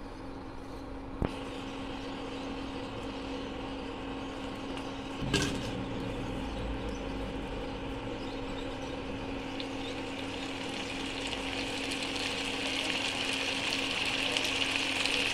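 Chicken sizzling in oil in a pan over a steady low hum, with two short knocks, one about a second in and a louder one about five seconds in. The sizzle grows louder from about ten seconds in, after chopped tomato and green chillies are added.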